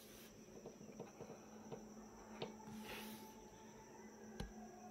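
Near silence: faint room tone with a low steady hum and a high faint tone, broken by a few soft clicks.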